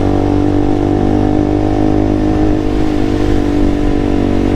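KTM single-cylinder motorcycle engine running at a steady speed while riding, with wind rumbling on the microphone.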